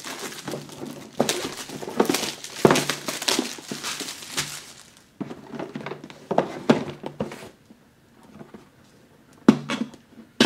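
Plastic shrink wrap crinkling and tearing as it is stripped off a cardboard box for about five seconds, followed by quieter handling of the box with a few soft knocks as it is turned over and set down on a table, the sharpest one near the end.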